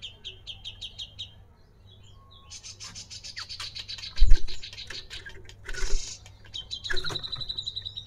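Caged songbird singing: a fast run of high chirps, then a busy stretch of rapid high notes, then a high, steady whistled note near the end. A loud thump about four seconds in.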